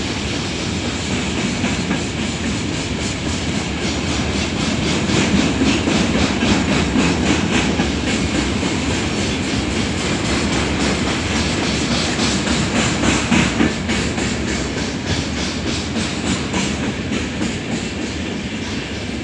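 Freight train wagons rolling past, a steady rumble with the rapid clickety-clack of wheels over rail joints, loudest around the middle.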